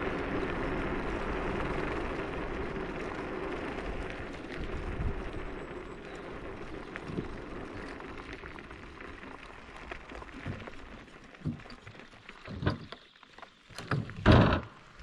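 Techlife X7S electric scooter rolling along a forest track, a steady rumble of tyre and riding noise that fades over about ten seconds as it slows. A few separate knocks and thumps follow near the end.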